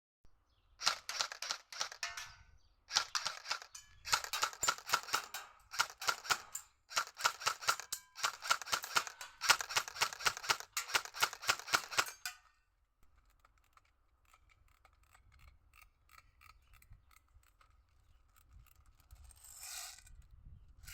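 Airsoft Kalashnikov replica firing full-auto, in several rapid strings of sharp clicks broken by short pauses. About twelve seconds in the firing stops, leaving only faint scattered clicks and a brief hiss near the end.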